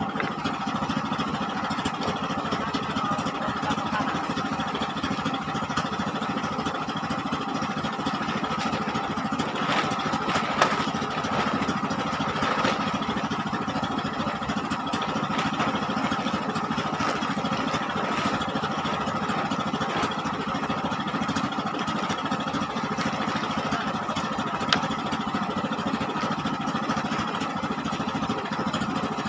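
An engine running steadily, with two brief sharp knocks, one about ten seconds in and one later.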